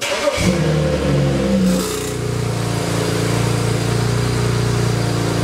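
BMW 335i's N54 twin-turbo inline-six starting up, heard at the exhaust tip: a brief crank, then the engine catches and flares in revs before settling to a steady idle about two seconds in.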